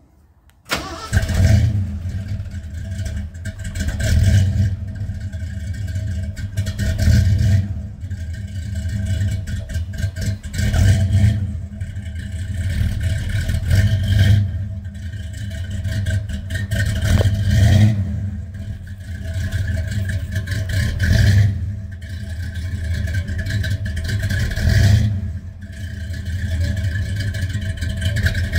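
A 1978 Ford pickup's engine, fitted with a big camshaft, starting cold: it catches about a second in and then runs loud, with its revs swelling and falling back every two to four seconds.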